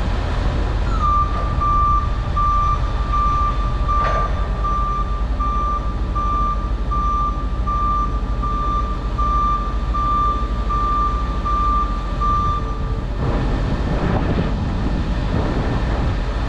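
Vehicle backup alarm beeping a single steady tone a little more than once a second over an engine's low rumble. It starts about a second in and stops near the end.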